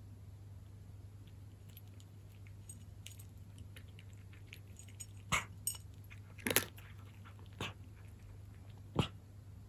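A cat crunching dry kibble: faint small crunches at first, then several sharp crunches from about halfway through, the last one near the end. A steady low hum runs underneath.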